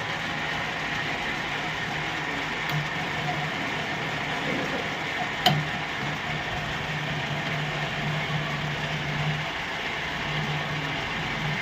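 Metal-turning lathe running with a steady mechanical hum, and one sharp click about five and a half seconds in.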